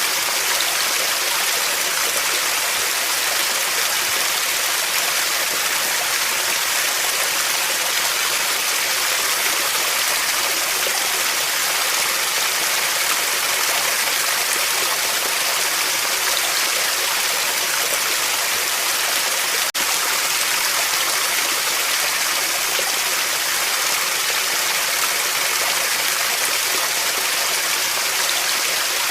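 Waterfall: a steady, even rush of falling water, bright and hissy with little low rumble.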